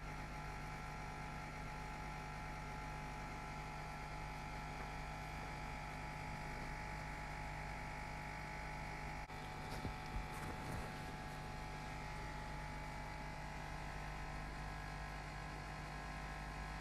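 Steady electrical hum made of several fixed tones, with a brief patch of clicks and rustling about ten seconds in.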